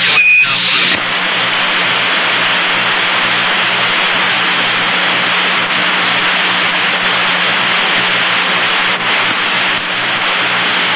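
Steady radio static hissing on an open mission-control communications loop, over a low steady hum, with a short high beep at the very start.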